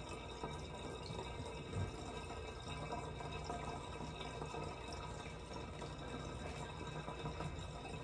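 Faint, steady running water from a bathtub tap.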